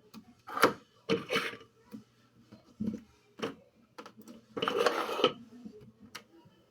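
Slime being worked by hand or with a utensil: a string of short, irregular squishy, clicky noises, the longest lasting under a second about two-thirds of the way through.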